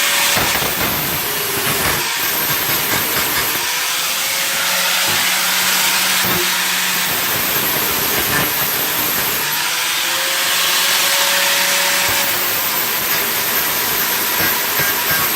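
Steady, harsh hissing noise of power-tool metalwork on a thin sheet-metal patch, with a faint motor tone that rises and falls a few times.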